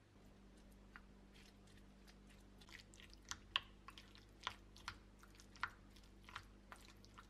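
Wooden spoon mashing and stirring avocado with diced tomato and onion in a bowl: irregular soft wet squelches and clicks, thickest in the middle and second half.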